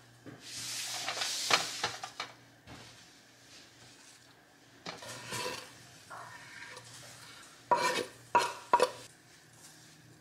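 Kitchen utensil scraping and stirring in cookware, then a few sharp ringing metal clinks about eight seconds in.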